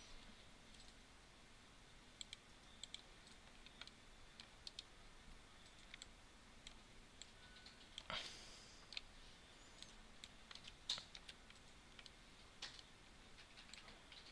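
Faint, scattered clicks of a computer mouse and keyboard over low room noise, with a short rustle about eight seconds in.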